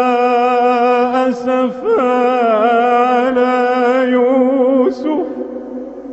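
A male Quran reciter chanting in slow, melodic tajweed style, holding long notes with ornamented turns of pitch. The voice breaks off briefly after about a second, resumes, and stops about five seconds in, the sound fading away after it.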